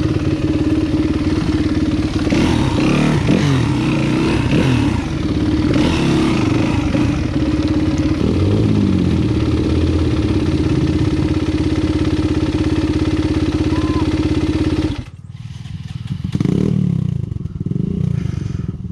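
Enduro dirt bike engine running, its pitch wavering and rising and falling a few times in the first half as the throttle is worked, then holding steady. About fifteen seconds in the engine sound falls away abruptly, and a quieter, brief engine sound follows.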